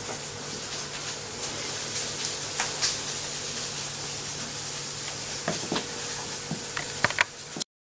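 Hands rubbing lard into flour in a mixing bowl: soft, crumbly scraping with a few light knocks against the bowl, over a steady hiss. The sound cuts off suddenly near the end.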